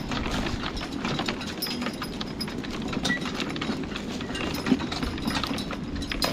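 A pair of Brabant draft horses walking in harness, with a steady irregular rattle and clatter of hooves, harness hardware and the metal cart they pull.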